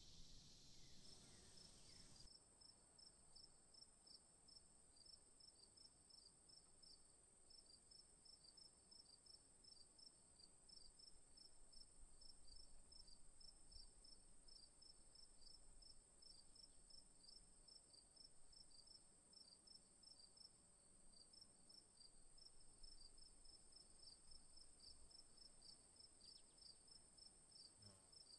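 Faint crickets chirping in quick, repeated pulses over a steady high-pitched whine.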